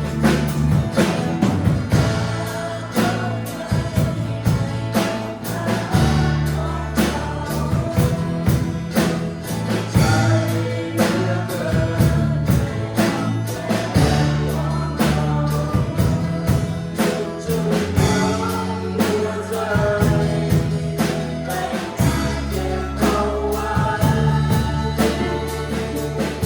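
Church worship band playing a gospel-style worship song: group singing over held bass notes and a steady drum beat.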